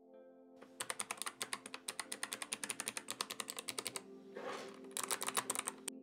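Mechanical keyboard switches with 3D-printed keycaps on a small macro pad, clicking as the keys are pressed in quick succession, about seven clicks a second. There are two runs of clicks with a short pause about four seconds in.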